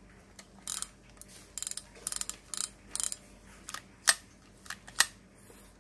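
A Daiwa spinning reel being worked by hand, giving a string of irregular mechanical clicks and short bursts of rapid ratcheting ticks. A couple of sharper clicks come near the end.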